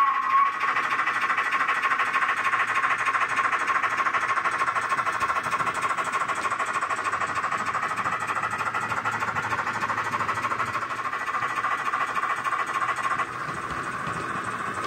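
Sound decoder in a model Sentinel steam shunter playing a fast, steady exhaust beat through the model's small speaker as the locomotive runs. The last of a whistle tails off in the first half-second, and the beat drops in level about thirteen seconds in.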